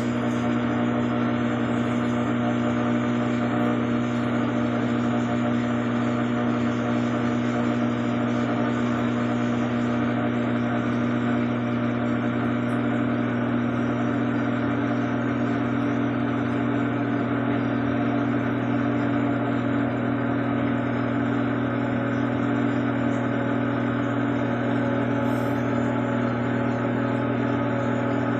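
Drain pump of an Electrolux LAC13 washing machine running loudly at the end of its cycle, a steady, unchanging hum.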